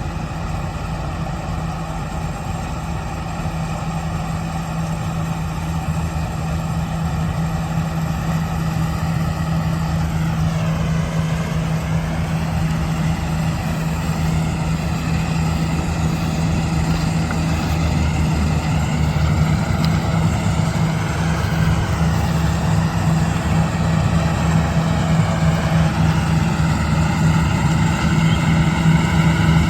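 Kartar combine harvester running steadily while cutting wheat: a deep, constant engine hum with machinery noise above it, growing gradually louder.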